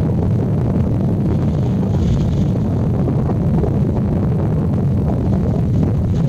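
Wind buffeting the microphone: a steady low rumble, with a faint higher hiss about two seconds in.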